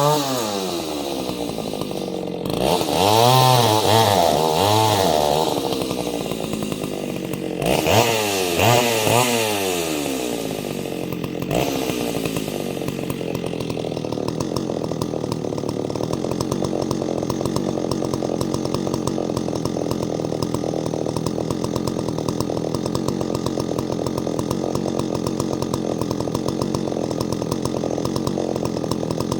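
Ported Solo 670 two-stroke chainsaw engine dropping off from high revs, revved up and down several times in two short spells, then settling into a steady idle for the second half.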